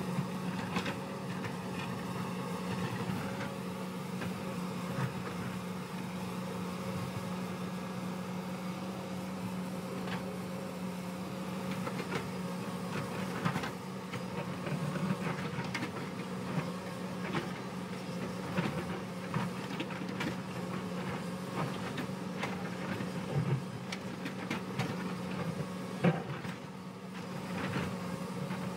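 Hyundai crawler excavator's diesel engine running steadily as its bucket digs into a rocky hillside, with scattered knocks and clatters of rock and stone against the bucket, the sharpest near the end.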